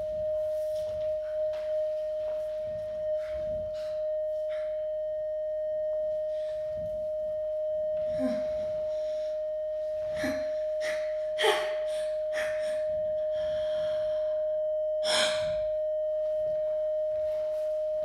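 A single steady high tone held without a break, over the performers' scattered breaths, gasps and short knocks of bodies and feet moving on a stage floor, with a couple of sharper clicks in the second half.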